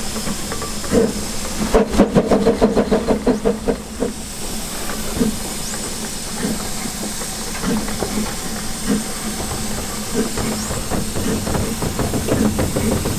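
Double Fairlie steam locomotive 'Merddin Emrys' (0-4-4-0T) moving slowly with steam hissing out of it. About two seconds in there is a fast pulsing for a couple of seconds, followed by looser, irregular beats over the hiss.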